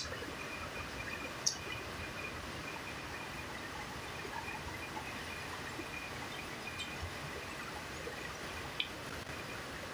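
Steady hiss of rain, with a faint, broken high note running through it. A few short crunchy clicks of chewing raw vegetables come about a second and a half in and again near the end.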